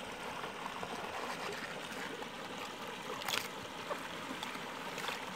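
Shallow creek water trickling and running steadily. A brief sharper sound comes about three seconds in.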